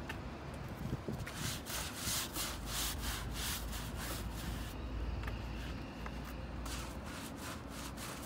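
Weathered wooden fence boards scrubbed by hand with a scrubber soaked in sodium hydroxide stripper, to take off the old stain. The strokes go at about three a second, with a short break partway through.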